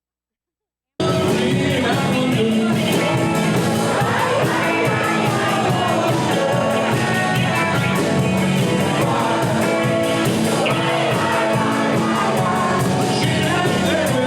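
Silence, then about a second in, a live rock band with a singer cuts in abruptly at full level and plays on steadily.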